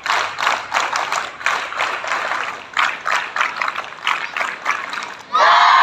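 A large group of schoolchildren clapping together in a quick, steady run of claps, then, about five seconds in, a loud short shout from the whole group.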